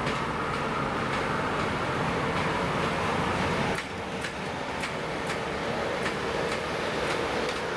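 Freight train passing: a PKP Cargo ET42 electric locomotive hauling a long string of hopper wagons, first a steady running noise with a faint hum. About halfway in the noise drops and the wagon wheels start clicking sharply over rail joints, a few times a second.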